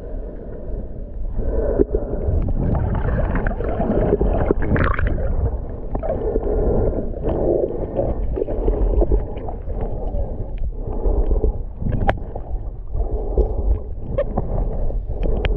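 Underwater noise heard below the surface: a low rumble and gurgling of moving water, with a few sharp clicks in the second half.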